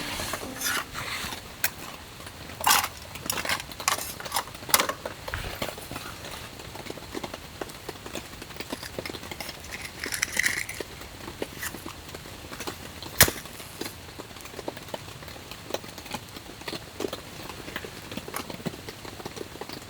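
Objects being handled: scattered light clicks and knocks, with one sharp knock about thirteen seconds in.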